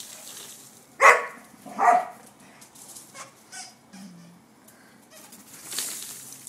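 Portuguese Water Dog barking twice, about a second in and again a second later.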